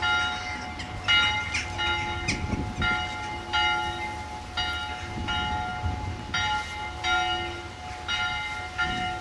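Church bells ringing: an uneven run of strikes, roughly one every half-second to a second, each ringing on into the next.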